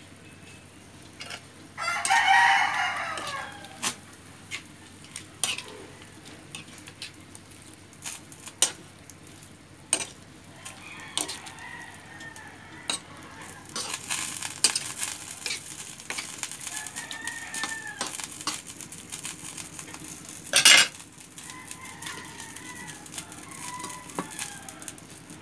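A spatula clicking and scraping against a metal pan of eggplant simmering in sauce, with sizzling and one loud metal clank about twenty seconds in. A rooster crows loudly about two seconds in, and fainter bird calls come later.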